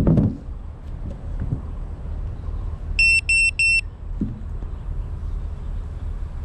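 A knock as the camera is set down on a car roof, then, about three seconds in, three short high-pitched electronic beeps in quick succession, over a steady low rumble.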